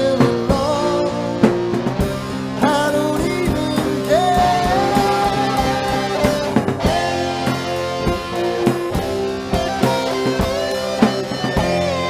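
Instrumental break of a rock song: a lead guitar plays sustained, bending notes, with one long held note about four seconds in, over rhythm guitar, bass and a drum kit.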